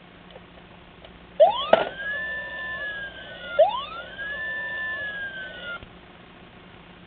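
A miniature toy police car's electronic siren sound effect giving two wail cycles, each sweeping quickly up, holding and then sliding slowly down over about two seconds. A sharp click comes just after the first wail starts.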